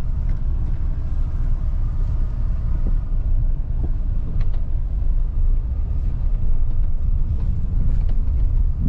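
Steady low road and engine rumble inside the cabin of a moving Mahindra XUV700, with a few faint knocks about three to four and a half seconds in.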